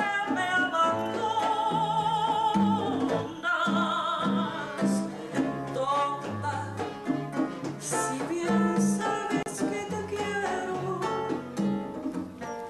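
A woman singing a slow song live into a microphone, holding long notes with a wide vibrato, backed by band accompaniment with a moving bass line.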